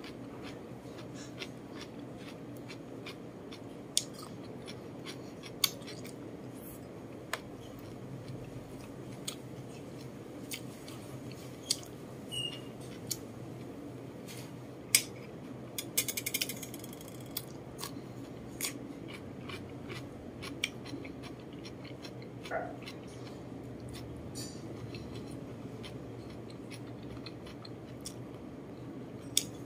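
A person eating close to the microphone: chewing rice and braised chicken, with scattered sharp clicks from the mouth and from a metal spoon against the plate, over a steady low hum.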